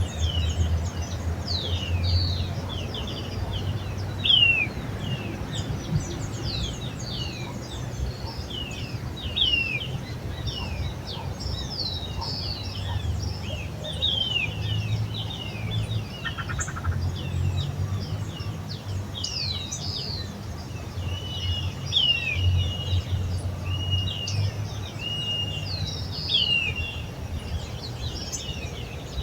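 A chorus of several songbirds, with many quick, falling chirps overlapping throughout. In the second half one bird repeats a short, level whistled note several times. A steady low rumble runs underneath.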